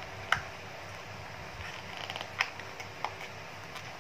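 Handling noise from a phone's cardboard retail box and its contents: a few short sharp clicks and taps as the box and small parts are moved, the loudest about a third of a second in.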